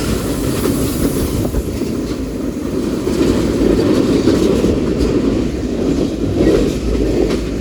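Tank cars of a Norfolk Southern manifest freight train rolling past: a steady rumble of steel wheels on the rails with a few clacks over rail joints.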